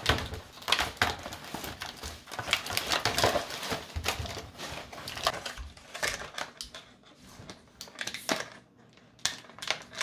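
Plastic and cardboard toy packaging being handled and crinkled: irregular crackles, rustles and light taps. They thin out near the end.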